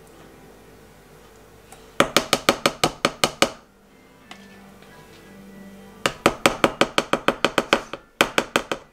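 Metal spoon tapping rapidly on the rim of a blender beaker, knocking off yoghurt: three runs of sharp, even clinks, about seven a second, over soft background music.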